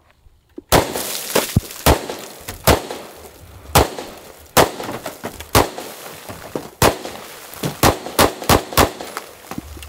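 Magnum Research Desert Eagle L5 semi-automatic pistol in .357 Magnum, with a compensator and muzzle brake, fired in a string of about ten shots, roughly one a second at first and quicker near the end. Fainter cracks fall between the shots.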